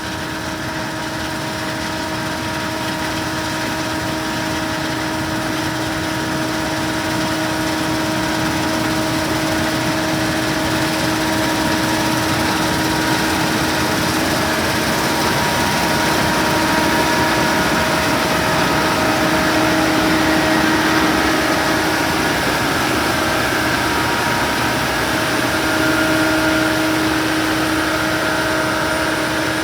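Case IH 2388 combine running steadily, with an engine drone and a steady whine over it. It grows gradually louder over roughly the first ten seconds, then holds.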